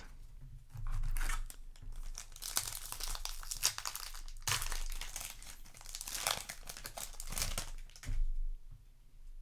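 Foil trading-card booster pack wrapper crinkling and being torn open by hand: a dense run of irregular rustles and crackles that dies down about a second before the end.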